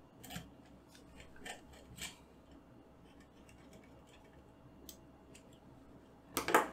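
Small metal parts and a screwdriver being handled on a tabletop during CPU cooler mounting: a few light clicks and taps, then a brief louder clatter near the end.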